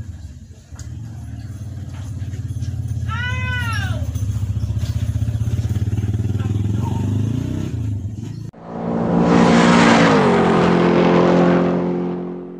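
An engine runs steadily in the background, growing a little louder and rising slightly in pitch before it breaks off about eight and a half seconds in, with one brief high chirp about three seconds in. It is followed by a loud whooshing sound-effect sting with a held chord, which swells up and then slowly fades.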